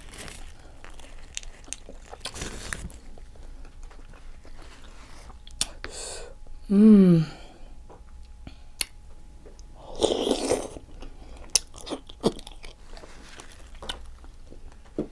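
Close-miked chewing and biting of seafood-boil food, with many small wet clicks and crunches. A short hummed voice sound comes about seven seconds in.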